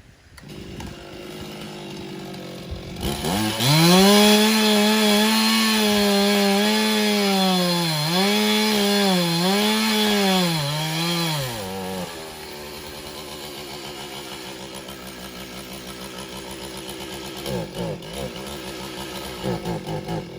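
Two-stroke chainsaw idling, then opened to full throttle about three seconds in to cut a tree limb, its pitch sagging several times under load. About twelve seconds in it falls back to a steady idle.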